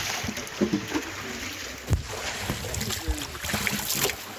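Water splashing and sloshing, with scattered knocks and clatter and faint voices in the background.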